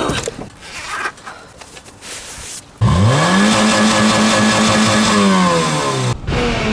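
Citroën Saxo engine catching and revving hard: the pitch climbs quickly, holds high for a couple of seconds, then drops, and after a short break it revs again near the end. Before it, a few seconds of quieter, irregular noise.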